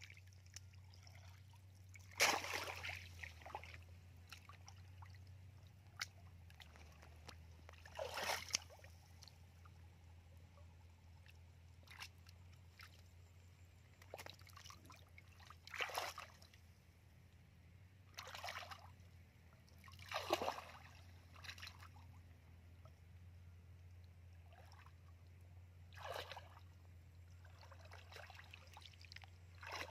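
Shallow muddy water splashing and sloshing as someone wades through it, several separate splashes a few seconds apart, the strongest about two seconds in.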